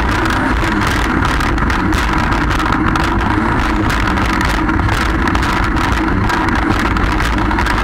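Jet ski running steadily at speed: a constant engine and jet-pump drone mixed with rushing water and crackling spray from the wake.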